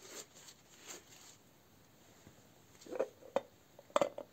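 Handling of a T-25 tractor's dismantled oil filter parts over a plastic catch bowl. Faint rustling at first, then a few short, sharp knocks and clicks about three to four seconds in.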